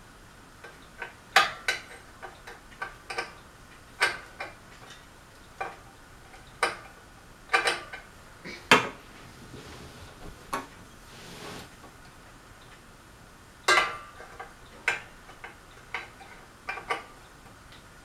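Metal parts of a Crest ceiling fan clinking and clicking as they are handled during removal: about a dozen irregular sharp clinks, some with a short metallic ring.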